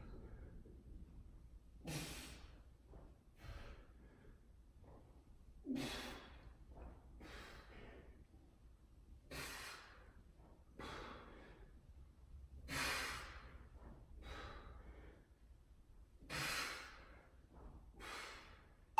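A man breathing hard from exertion during dumbbell sit-ups: a strong breath about every three and a half to four seconds, with a weaker one between.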